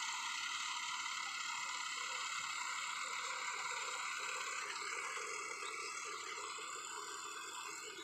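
Yanmar AG600A rice combine harvester running as it cuts, a steady mechanical clatter and whir that grows slightly fainter near the end as it moves away.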